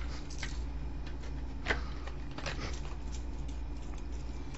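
Plastic lure packaging being handled: a few scattered light clicks and crinkles, the sharpest about a second and a half in, over a steady low hum.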